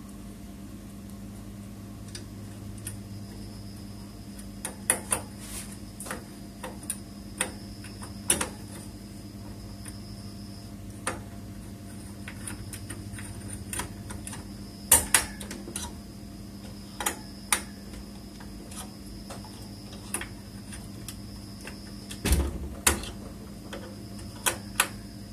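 Irregular metal clicks and taps of a small screwdriver driving and tightening the heatsink fan screws on a desktop motherboard, with a heavier knock about 22 seconds in, over a steady low hum.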